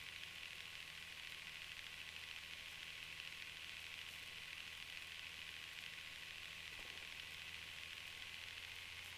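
Faint steady hiss with a low hum, the sound of an aircraft's radio and intercom audio feed between transmissions.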